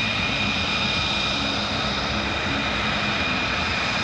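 Jet aircraft engines running steadily: a constant high whine over a low rumble.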